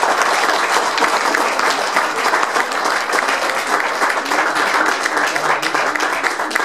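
Audience applauding: dense, steady hand clapping.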